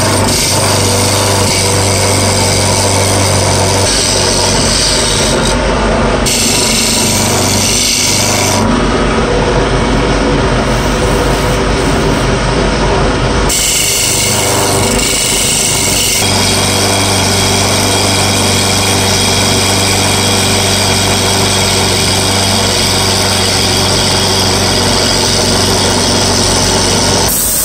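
Wood lathe running with a steady motor hum while a hand turning chisel shaves the spinning wooden horn. The cutting noise changes character abruptly several times.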